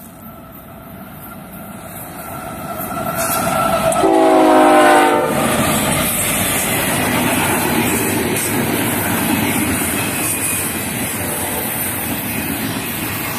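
Norfolk Southern freight train approaching and passing. The diesel locomotives grow steadily louder, and a single horn blast of about a second and a half sounds about four seconds in. Then comes the steady rumble and clickety-clack of double-stack container cars rolling by.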